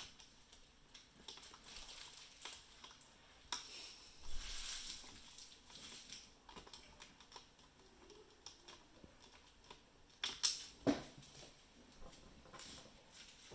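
Quiet handling noises of a laptop screen repair: scattered light clicks and taps of a small screwdriver and screws on the laptop screen's edges, a short stretch of scraping about four seconds in, and a few sharper clicks about ten seconds in.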